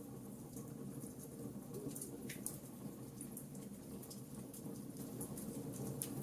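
Wood fire in a fireplace crackling, with frequent irregular pops and snaps over a low steady rumble of the flames.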